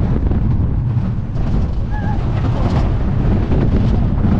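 Wind rushing over the microphone and the rumble of the Wildfire wooden roller coaster's train running on its track at speed. A short high tone sounds about two seconds in.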